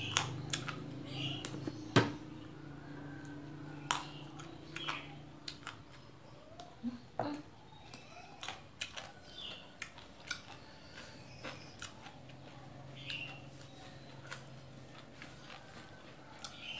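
A person eating by hand close to the microphone: chewing, with many small clicks and taps and one sharper knock about two seconds in. A low steady hum sits behind it at the start and again near the end.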